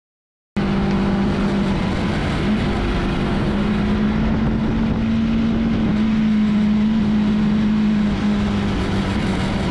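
Bajaj Pulsar NS200 single-cylinder motorcycle engine running under way at a steady cruise, with road and wind noise. It starts about half a second in, the engine note lifts slightly a couple of seconds later and eases off near the end.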